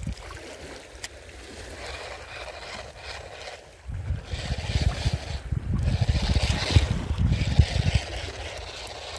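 Outdoor seaside wind noise buffeting the microphone, with water sounds beneath. It grows into a stronger gust from about four seconds in to about eight seconds, then settles back.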